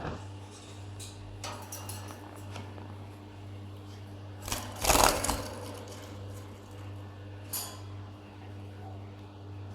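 Scattered light clicks and clinks, with one louder clatter about five seconds in, from lovebirds feeding in their cage. A steady low hum lies underneath.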